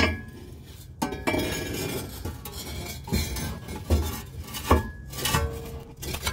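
Steel exhaust tailpipe knocking and scraping against the underside of a Jeep ZJ Grand Cherokee as it is worked up over the rear axle by hand. About six sharp metallic clanks come roughly a second apart, some ringing briefly, with rubbing in between.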